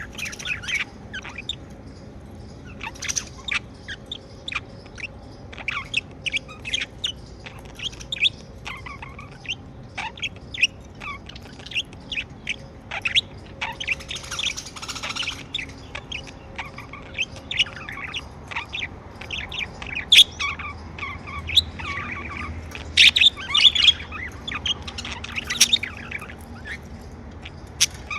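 Pet budgerigars chirping and chattering: a steady stream of quick, short chirps, with a denser stretch of warbling about halfway through.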